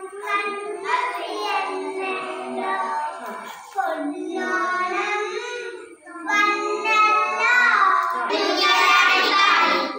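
A small group of young children singing a song together, in phrases with short breaks about four and six seconds in, and louder from about eight seconds on.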